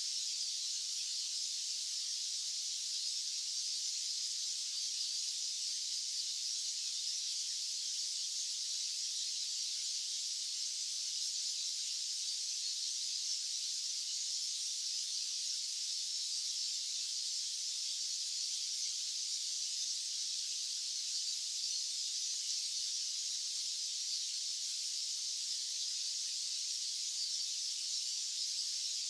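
White noise track: a steady, even hiss that sits high, with no low rumble, unchanging throughout.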